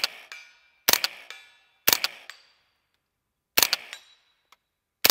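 Suppressed Tippmann M4-22 .22 LR rifle firing subsonic rounds, about five shots roughly a second apart with a longer pause near the middle. Each shot is a sharp double crack followed by a short metallic ring from steel targets being hit.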